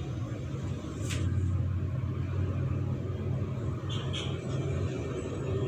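A steady low background rumble, with a light click about a second in and two fainter clicks about four seconds in as hands handle a small brass idol.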